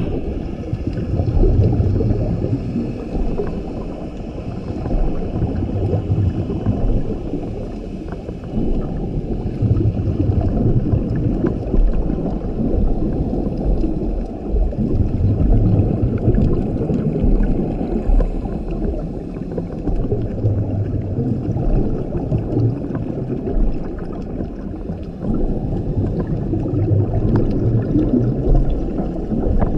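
Scuba diver breathing through a regulator underwater: a muffled, bubbly rumble of exhaled bubbles that swells and fades in repeated breaths every few seconds.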